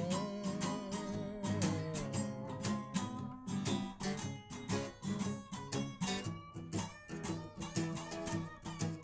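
Blues band playing an instrumental break: strummed acoustic guitar keeping a steady rhythm under a bending lead line.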